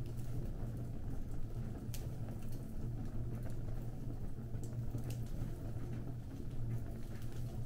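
Fire burning, with scattered sharp crackles and pops over a steady low rumble.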